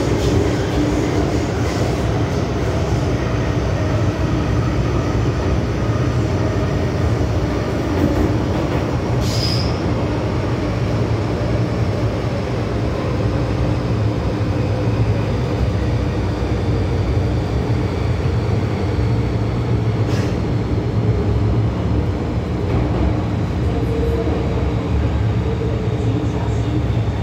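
Interior running noise of an MTR Tsuen Wan line M-Train: a steady rumble of wheels on rail with a low hum from the running gear. A brief high squeal comes about nine seconds in, and a sharp click about twenty seconds in.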